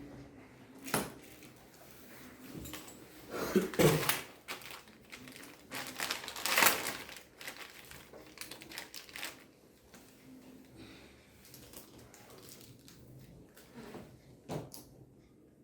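Intermittent crinkling and rustling of packaging being handled, in scattered bursts, loudest about four and seven seconds in.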